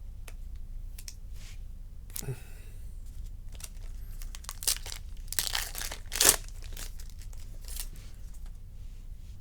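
Packaging being torn and crinkled by hand: a handful of short, sharp rips and crackles, the loudest cluster about five to six and a half seconds in.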